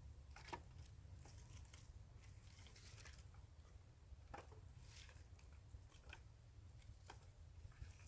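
Near silence with a low steady rumble and faint, scattered short clicks and crackles, about a dozen over the stretch.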